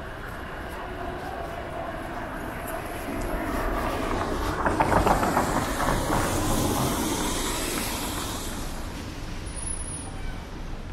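A vehicle passing close by: its noise builds about three seconds in, is loudest around five seconds with a brief run of clattering clicks, then fades away, over a steady low rumble.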